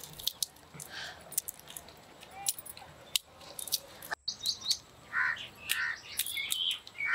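Peanut shells cracking as they are split open by hand, a scatter of sharp snaps through the first few seconds. About four seconds in, birds start chirping, short calls repeated several times.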